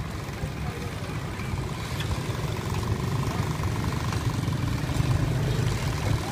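A steady low engine rumble, like an engine idling, with a faint thin tone in the middle.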